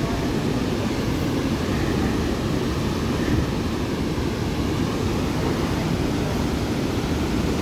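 The Merced River's whitewater rapids rushing, a steady, unbroken wash of noise heaviest in the low range.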